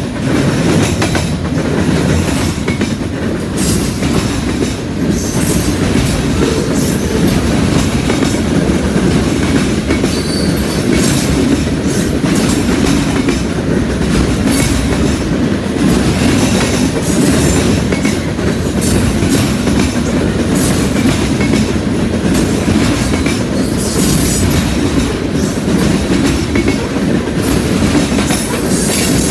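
Freight cars of a passing train rolling by close up: a steady rumble of steel wheels on rail, with frequent irregular clacks as the wheels run over the junction switch.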